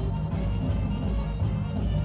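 Live music by a Japanese dance and drum band, with a drum kit, played back from a video clip.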